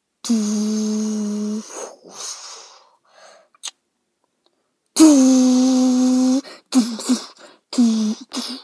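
Lightsaber sounds made with a person's mouth: two held, buzzing hums of about a second and a half each, the second louder, standing for the sabers igniting. These are followed by four short, falling vocal bursts for the blades clashing.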